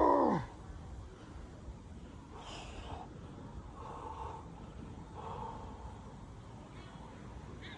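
A man's short, loud grunt of exertion, falling sharply in pitch, right at the start. It is followed by several fainter heavy breaths, the breathing of someone working out hard.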